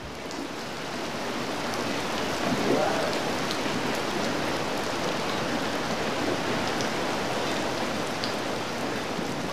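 Heavy rain falling on wet pavement and puddles: a steady, even hiss of splashing drops.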